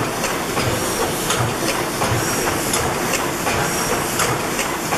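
Snow-Holly Works Worthington 600-horsepower reciprocating natural gas engine running, a steady mechanical clatter with regular beats, mixed with the hiss of cooling water pouring from a pipe into a funnel.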